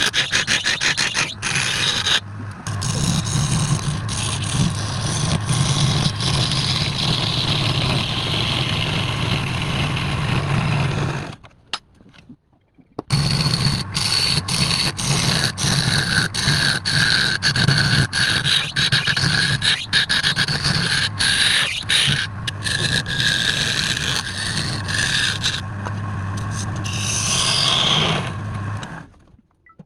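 Wood lathe running, with a turning tool scraping and cutting into the spinning wood. The motor hums steadily under a rough, ticking scrape. The sound stops for about a second and a half a little before the middle, then starts again.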